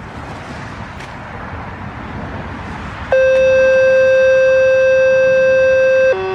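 Steady background hiss, then a loud, perfectly steady electronic-sounding tone starts abruptly about three seconds in and switches instantly to a lower tone near the end.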